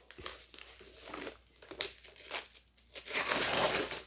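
A mail package being opened by hand: the packaging crinkles and tears in a series of short bursts, with a longer, louder tear about three seconds in.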